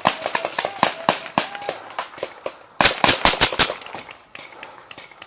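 Paintball markers firing: scattered single shots, then a rapid string of about eight shots about halfway through, the loudest part.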